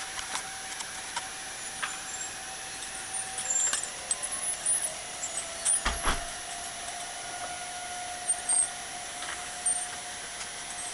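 Distant Federal Signal 2001-130 outdoor warning sirens sounding a steady tone during a scheduled siren test, more than one siren going at once. A second tone slides up to join the first about four seconds in, and there is a dull thump about six seconds in.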